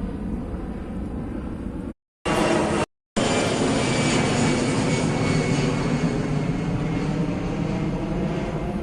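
Jet airliner flying over, a steady engine rumble with a thin whine that slowly falls in pitch. The sound drops out completely twice, briefly, about two and three seconds in.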